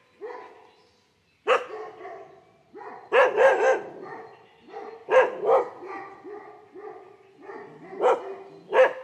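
A puppy yapping: short, high-pitched barks, several in quick pairs, with quieter yelps between them.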